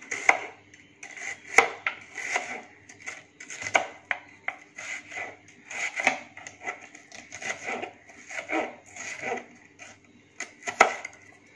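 Kitchen knife slicing a red onion on a plastic cutting pad: a run of irregular cuts, the blade knocking on the pad roughly one to two times a second.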